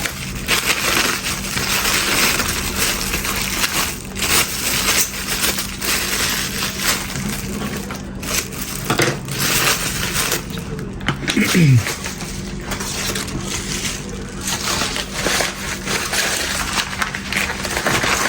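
Packaging being unwrapped by hand: continuous crinkling and rustling of wrapping, with small clicks and knocks throughout.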